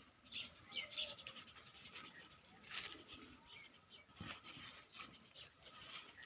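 Faint outdoor ambience with scattered short bird chirps and light scratching clicks, and a quick run of high chirps near the end.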